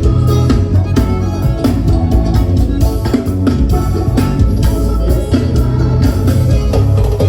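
Loud band music with drums and guitar, played through a PA system during a sound check.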